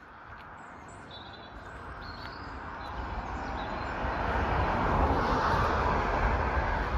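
A road vehicle passing close by: its tyre and engine noise grows steadily louder for about five seconds and stays loud near the end.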